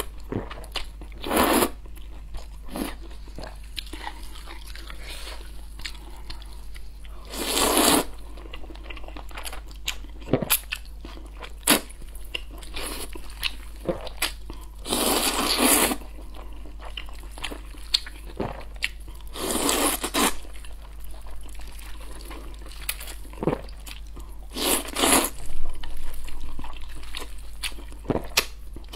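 Close-miked eating sounds of a person slurping noodles, in five loud slurps a few seconds apart, the longest about a second long near the middle. Between slurps, wet chewing and small mouth clicks.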